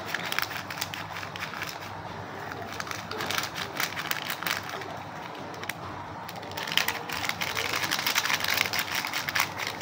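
Foil glucose sachet crinkling in the hands while the powder is shaken out of it into a plastic mug of water: an irregular crackle, thinning briefly about five seconds in.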